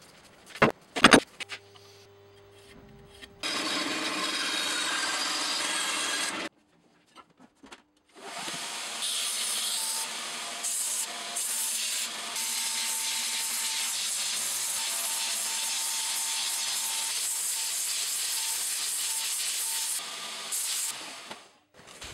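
A few sharp knocks about a second in, then a belt sander running with a strip of wood held against the belt: a steady abrasive hiss over a faint motor whine that stops shortly before the end.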